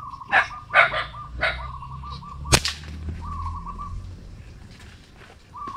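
A bird calls in a repeated wavy trill while a few rustling strokes sound. About two and a half seconds in comes a single sharp snap, the shot of a hunting slingshot.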